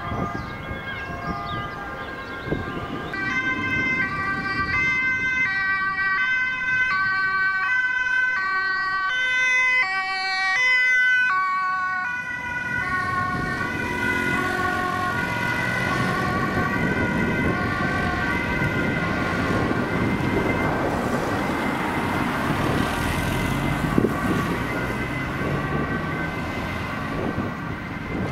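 Dutch emergency vehicles' two-tone sirens: briefly a police car's at the start, then a Volkswagen ambulance's siren stepping back and forth between two pitches. It is loudest for several seconds, then goes on fainter as the ambulance drives away under rising engine and road noise.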